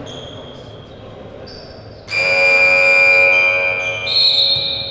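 Gym scoreboard buzzer sounding once for about two seconds, starting about two seconds in, followed at once by a short, high referee's whistle blast as play is stopped.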